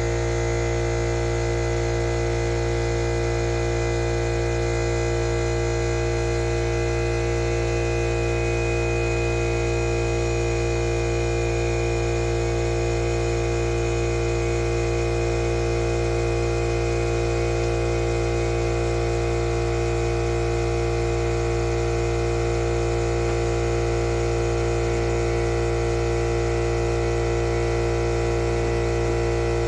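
Steady electrical hum made of several constant tones, unchanging in pitch and loudness.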